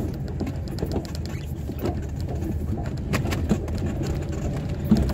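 Car engine running and tyre noise heard from inside the cabin while driving, a steady low hum with scattered small clicks and knocks.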